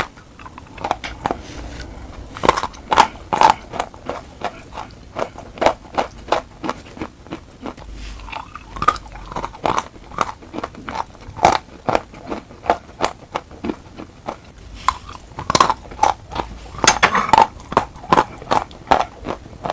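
Dry chalk chunks being bitten and chewed, picked up close by a clip-on microphone: a string of sharp, crisp crunches, one or two a second, coming thickest a little past the middle.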